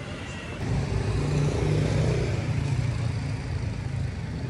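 A motor vehicle's engine passing on the street, growing louder about a second in and easing off near the end, over general street traffic.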